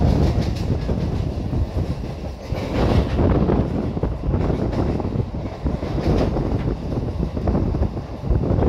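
Train running along the track, heard from on board: a steady rumble with the wheels clacking irregularly over the rails.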